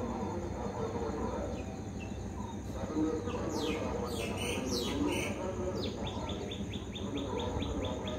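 Birds calling: a few quick descending chirps about halfway through, then a rapid run of short repeated notes, about five a second, over a steady low background murmur.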